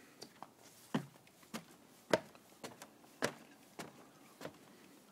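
Footsteps on wooden stairs and deck boards: faint, evenly spaced knocks at a steady walking pace, a little under two steps a second.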